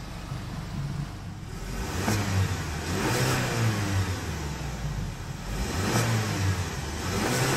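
2013 Hyundai Santa Fe Sport's 2.0-litre turbocharged four-cylinder idling, then revved several times in Park, rising to about 3,000 rpm and falling back each time, heard from inside the cabin.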